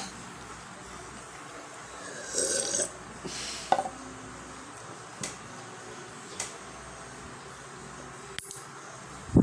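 Close-miked sounds after a drink of cold water: a short burp about two and a half seconds in, then a paper cup clicking down on a table. Scattered small ticks follow, and a heavy low thump near the end is the loudest sound.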